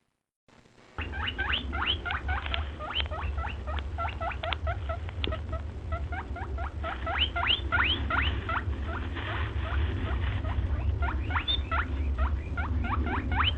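Many short, rising, high squeaks or chirps from small animals, several a second and overlapping, starting about a second in after a moment of silence, over a steady low hum.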